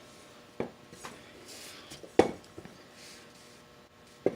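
Metal parts and tools knocking and clinking as they are handled: three short sharp knocks about a second and a half apart, the middle one loudest, with faint rustling between them.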